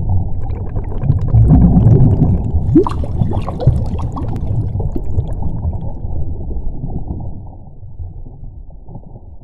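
Underwater sound effect: a deep watery rumble with a burst of bubbles fizzing and gurgling about two to five seconds in, then fading down near the end.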